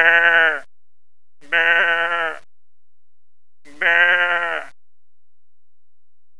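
A person imitating a goat's bleat: three wavering "meh" calls, each under a second long, about two seconds apart.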